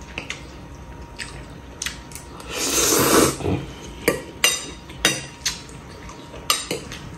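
Metal fork and knife clinking and scraping against a ceramic bowl as spaghetti is twirled, with scattered sharp clinks, several in the second half. A longer, louder noisy stretch comes about three seconds in.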